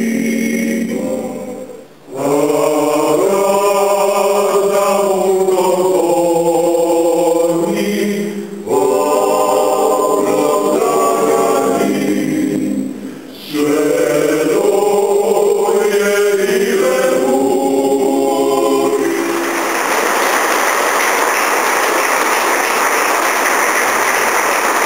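A choir singing in several voices, phrase by phrase with short breaks. The singing ends about three-quarters of the way through and the audience applauds.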